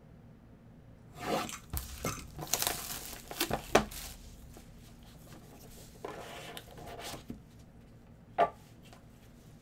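Clear plastic wrapping torn open and crinkled by gloved hands as a trading card box is unsealed, in uneven bursts through the first few seconds and again around six seconds in, with one sharp click near the end.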